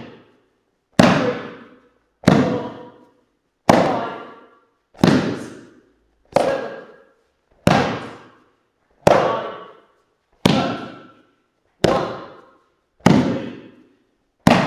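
Martial-arts side breakfalls: the body and flat palm slap down on a foam mat about every 1.3 seconds, eleven sharp slaps in a steady rhythm. Each slap rings out in the hall's echo before the next.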